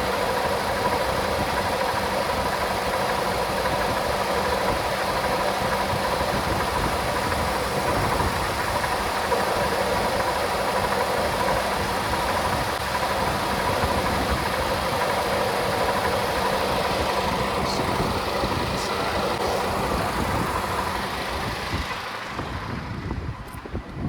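Vehicle engine idling steadily with the air conditioning running, a steady whine riding over the engine noise. The sound falls away sharply near the end.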